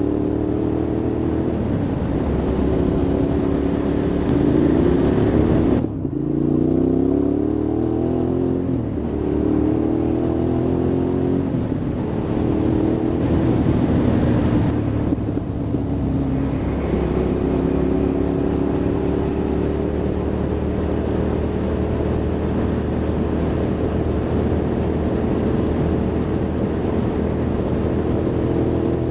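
Hyosung GT650R's V-twin engine pulling through the gears, its pitch rising, with a sudden brief drop about six seconds in at a gear change. It then climbs again and settles to a steady cruising note for the second half.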